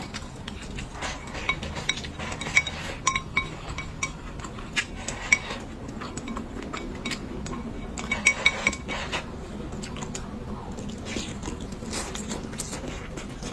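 Wooden chopsticks clinking and tapping against a ceramic bowl while food is picked up, in scattered clicks with a quick run of taps about eight seconds in.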